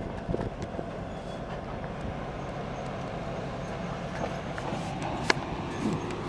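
Twin-section diesel locomotive running toward and close past the listener: a steady engine and rail rumble that grows slightly louder, with a sharp click about five seconds in.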